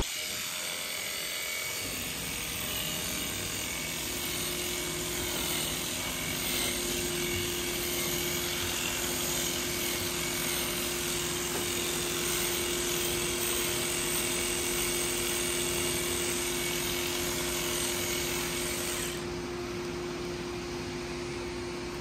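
Electric livestock clippers running steadily while cutting the hair of a cow's tail switch: a constant motor hum over a hiss of cutting, the high hiss dropping away about three seconds before the end.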